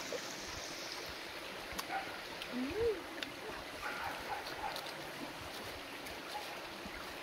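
Shallow stream running over rocks, a steady rushing. About three seconds in, a brief low tone rises and falls once over it.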